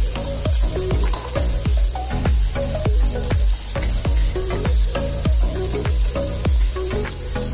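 Onion and garlic sizzling as they sauté in a pan, stirred with a wooden spatula, under background music with a steady beat.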